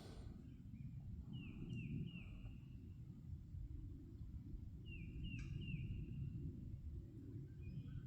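A bird calling: two runs of three short falling chirps, about three and a half seconds apart, over a steady low rumble.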